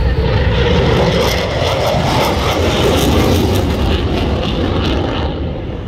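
F-16 fighter jet's single engine running loud as the jet passes low overhead, its roar falling in pitch and fading near the end.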